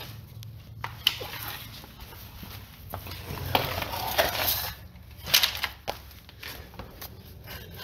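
Handling and movement noises: scattered knocks, clicks and rustling as a cordless work light is picked up and carried while someone shifts about on cardboard laid on the floor, with a few louder scrapes around the middle, over a steady low hum.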